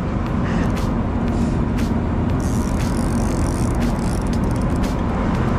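Boat engine running steadily under wind and water noise, with scattered sharp clicks.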